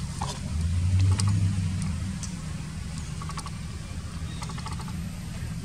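Low engine rumble of a passing motor vehicle, swelling about half a second in and easing after about two seconds, with faint scattered ticks over it.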